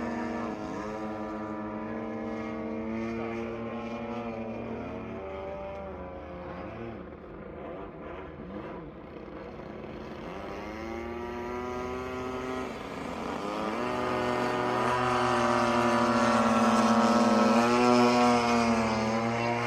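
Single-cylinder two-stroke petrol engines (Desert Aircraft DA-35) of two large-scale RC aerobatic planes in flight, their pitch rising and falling several times with throttle and manoeuvres. Loudest near the end.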